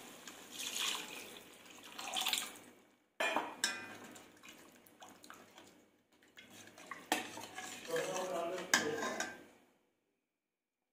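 A steel ladle scraping and clinking against a stainless steel kadhai as yogurt is stirred into a thick masala, in irregular bursts with a sharp knock about three seconds in; it stops about a second before the end.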